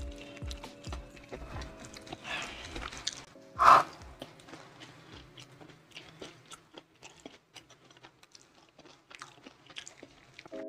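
Close-miked chewing and crunching of crispy fried chicken coated in sticky chilli sauce. Two louder crunchy bites come in the first four seconds, followed by many small wet chewing clicks. Soft background music plays underneath.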